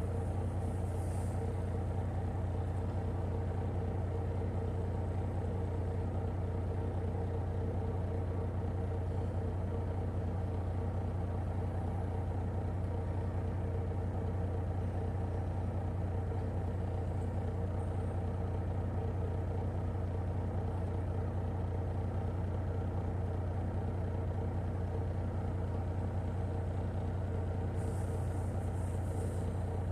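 Semi-truck diesel engine idling with a steady low hum, with faint brief hissing near the start and near the end.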